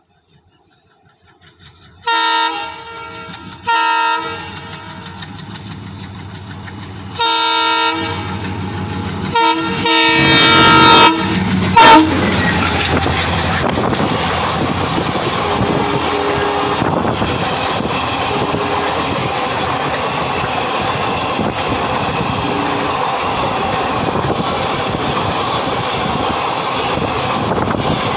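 Multi-tone air horn of a WDM3D diesel locomotive sounding several blasts as it approaches, the last and loudest about twelve seconds in. The express train then passes at speed with a steady loud rush of diesel engine and coaches over the rails.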